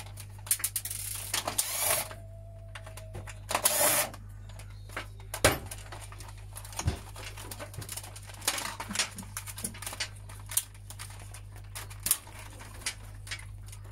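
A cordless drill driver runs briefly twice in the first four seconds, backing out screws holding the CD player's circuit board. After that come scattered clicks, knocks and rattles of the plastic casing and circuit board being pulled loose and handled.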